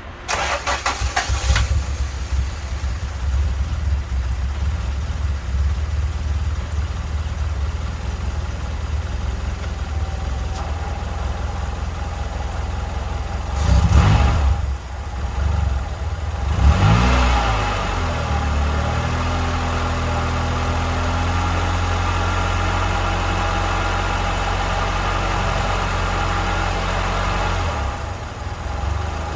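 1991 Honda Civic's four-cylinder engine, freshly converted from dual-point to multi-point fuel injection, running unevenly at first. About halfway through there is a loud surge and then a short rev that rises and falls, after which it settles into a steady idle.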